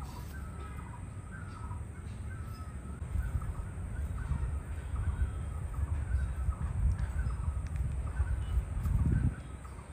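Crows cawing over and over in the background, with a low rumble that grows louder about a third of the way in and cuts off suddenly near the end.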